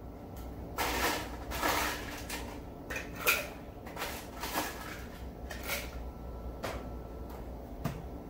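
Ice cubes clattering as they are scooped from a countertop ice maker into a stainless steel mixing tin, in about seven separate short rattles.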